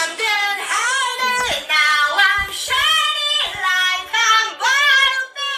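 High-pitched child's voice in a string of drawn-out, wavering cries, each about half a second long and sliding up and down in pitch, over a faint steady tone.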